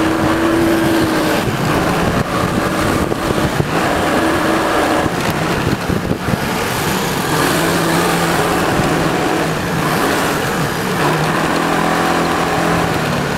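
Motorcycle running at road speed, heard from the rider's own bike, with a steady rush of wind and road noise over the engine note. The engine pitch shifts a little through the bends.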